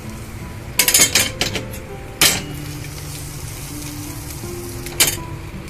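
Metal single-slice hot-sandwich pan (Montagna grill hot pan) being opened on a gas stove. A cluster of metal clinks comes about a second in, a sharp clank a little after two seconds and another near the end, over the steady sizzle of the sandwich cooking.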